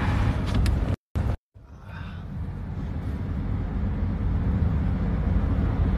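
Steady road and engine rumble inside a moving car's cabin. It cuts out completely twice about a second in, then comes back quieter and slowly builds up again.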